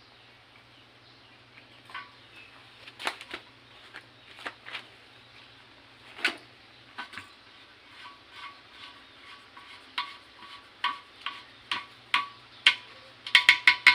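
Irregular clicks and knocks of PVC pipe fittings being handled and threaded onto a converted steel LPG-tank pressure tank, coming faster and louder near the end.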